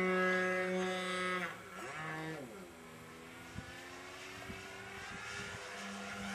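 OS 55AX glow engine on a Primo 40 3D profile model plane, running at a steady high note. About a second and a half in the throttle comes back: the pitch slides and the sound drops to a quieter, lower running. Near the end it opens up again to the full note.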